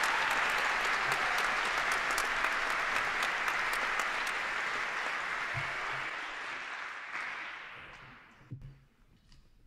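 Audience applauding; the clapping dies away about eight seconds in, followed by a single low thump.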